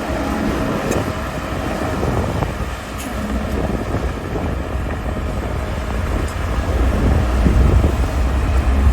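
Diesel engine of Caterpillar earthmoving machinery running steadily with a deep rumble, with a few faint clanks.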